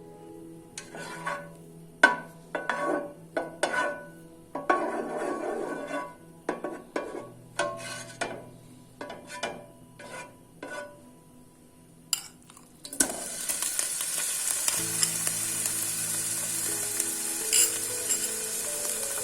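Irregular clinks and scrapes of a utensil against cookware, then a steady hiss that starts about thirteen seconds in, over soft background music.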